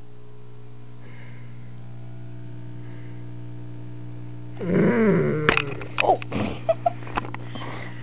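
Low steady hum, then about four and a half seconds in a Doberman gives a short grunting whine that bends up and down in pitch, followed by a scatter of sharp clicks and a couple of brief whimpers.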